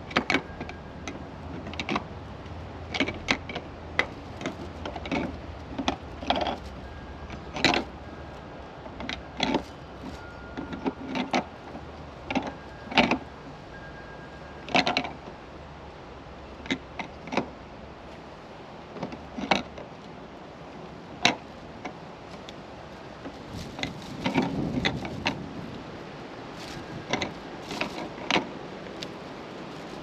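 Irregular clicks and plastic rattles of a plastic pool wall fitting being handled and turned by hand, with a low steady hum underneath that stops about two-thirds of the way in.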